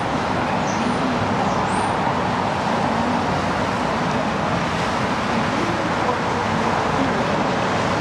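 Steady hum of city traffic noise, an even wash of sound with no distinct events.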